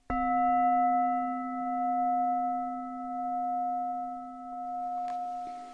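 A bell struck once, ringing on as a steady tone that slowly fades, its loudness wavering in slow waves.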